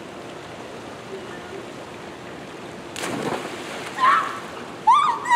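A person jumping into a swimming pool: one splash about three seconds in. It is followed by two loud, high-pitched yelps from the swimmer in the water, which she calls very, very cold.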